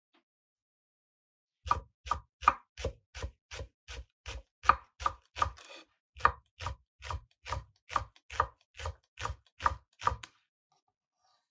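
Kitchen knife slicing green onion on a wooden cutting board: evenly paced chopping strokes, about three a second, each a sharp knock of the blade on the board. The strokes start nearly two seconds in and stop about a second before the end.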